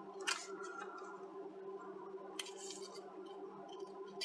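Soldering work on a circuit board: small clicks of the iron tip and tweezers, and a brief hiss about two and a half seconds in, over a faint steady hum.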